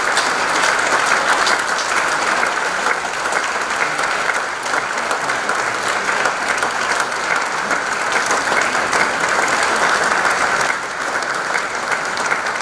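Audience applauding steadily, a dense even clapping that dips slightly near the end.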